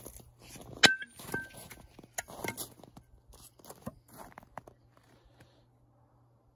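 A sharp metallic clank with a brief ring about a second in, then a second, lighter ringing clink, as the steel axe and sledgehammer are handled, followed by scattered small knocks and handling noises that die away.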